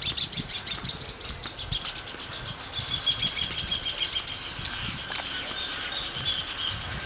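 Small birds singing: a steady stream of short, high chirps, with a fast trill of repeated notes running through the second half.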